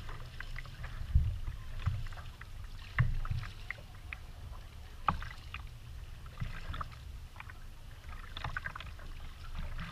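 Kayak paddling on calm water: a double-bladed paddle dipping and dripping in scattered small splashes and ticks, over a low rumble of water against the plastic hull, with two louder knocks about one and three seconds in.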